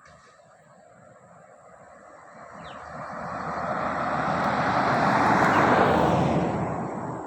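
A vehicle passing by on the road, its engine and tyre noise swelling to a peak about five to six seconds in and then fading away.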